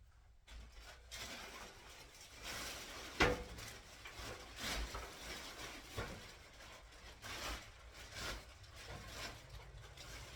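Paintbrush swishing in repeated strokes against a wall while cutting in trim, with one sharp knock about three seconds in.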